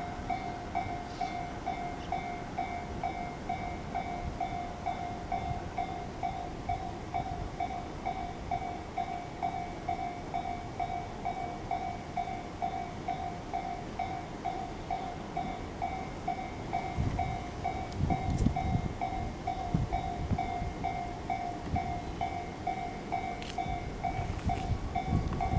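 Japanese level-crossing warning bell ringing steadily in an even, rapid beat of about two strikes a second, with a train's low rumble rising in the second half as it passes.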